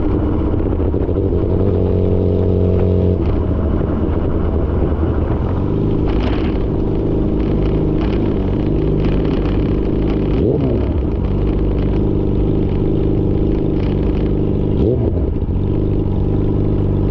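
Yamaha R6's inline-four engine running through an SC-Project titanium exhaust. The note is steady but changes pitch a few times, with two short swoops in pitch past the middle.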